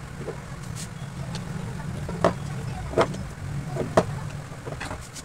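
A handful of sharp clicks and taps as the plastic regulator body and a screwdriver are handled on a hard bench, the loudest two about three and four seconds in, over a steady low hum.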